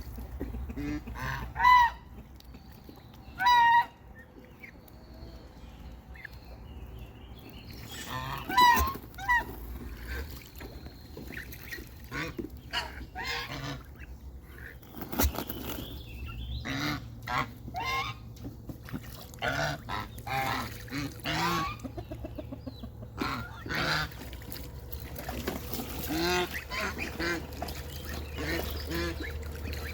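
Birds calling over and over: a few loud, separate calls in the first ten seconds, then calls in quick succession for the rest of the time.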